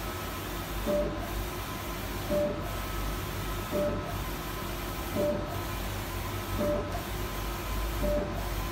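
Etech 1.6 m large-format inkjet printer printing: the print-head carriage sweeps back and forth, with a surge and a brief tone each time it turns around, about every second and a half, over a steady hiss.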